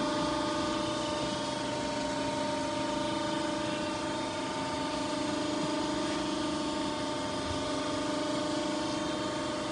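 Steady machine hum of a running CNC tube-bending machine, a constant whine of a few level tones that holds without change.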